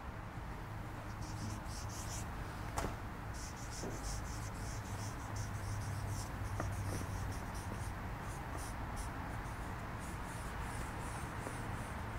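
Marker pen squeaking and scratching across a large paper sheet in short, irregular strokes as words are written. There is a single sharp click about three seconds in, over a steady low hum.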